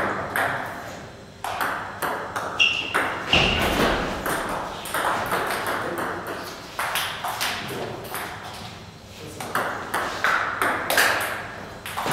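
Table tennis rally: the celluloid ball clicking off the rubber bats and the table top in quick, irregular strokes. A brief high squeak comes about three seconds in.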